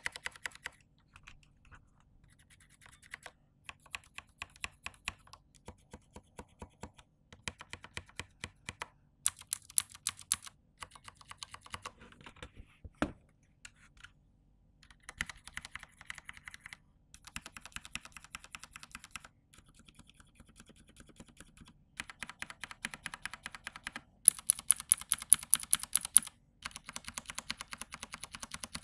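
Typing on a Vortex VX87 mechanical keyboard with keycaps fitted and a mix of hot-swapped Cherry MX switches (black, red, silent red, brown, blue, silver) and stock Outemu switches: runs of rapid keystroke clicks in bursts with short pauses between them, loudest in flurries about nine seconds in and near the end.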